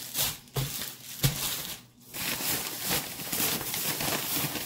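Plastic grocery bags rustling and crinkling as items are rummaged out of them, with two knocks in the first second and a short pause near two seconds in.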